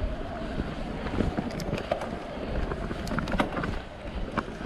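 Wind buffeting the camera microphone while an e-mountain bike is ridden, with scattered clicks and rattles from the bike.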